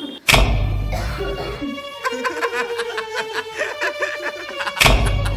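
Film score and sound design: a sudden deep boom with a low rumble, then tense music with a held drone and rapid clicking percussion, mixed with laughter, and a second deep boom near the end.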